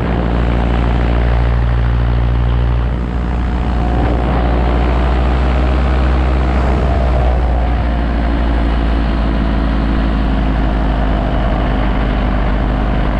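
Paramotor engine and propeller running steadily in flight, a loud, dense drone with a brief dip in level about three seconds in.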